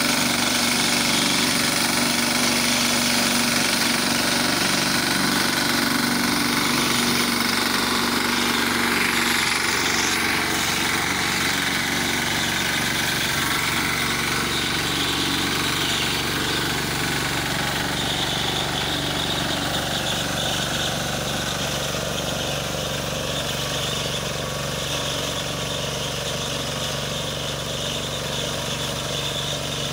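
BCS four-wheel reaper binder's engine running steadily as the machine cuts and binds wheat, getting gradually quieter toward the end.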